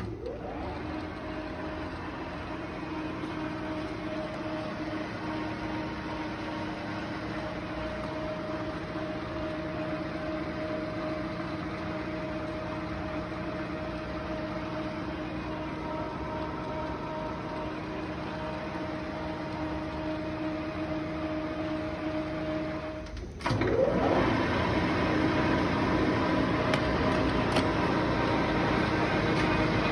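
Mori Seiki 15-inch by 32-inch lathe running steadily under power with a level hum. About 23 seconds in, it drops out briefly and then spins up again, running louder at 510 RPM.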